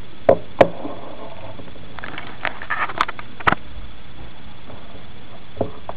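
Clicks and knocks from a Sony TR-725 transistor radio's plastic case being handled, with a run of scratchy crackles and clicks in the middle as its side thumbwheel is worked.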